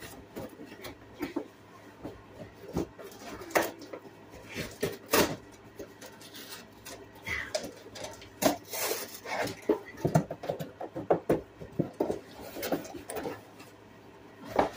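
A large cardboard shipping box being handled and pulled at by hand as someone tries to open it: irregular knocks, thumps, scrapes and rustles of cardboard.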